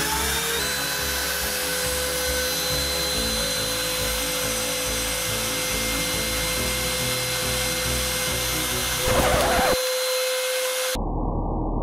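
Makita hand router spindle on a homemade CNC, running at a steady high whine while it cuts into a wooden sheet. About nine seconds in there is a brief, louder, rougher burst, and near the end the sound turns muffled.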